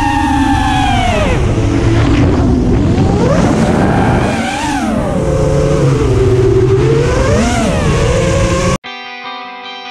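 Racing quadcopter's motors and propellers whining, the pitch swooping up and down with the throttle, over a rush of air on the onboard camera's microphone. Near the end it cuts off abruptly and electric guitar music starts.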